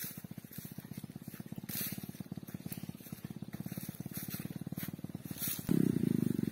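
Single-cylinder engine of an underbone motorcycle running with a fast, even putter. It becomes clearly louder about five and a half seconds in.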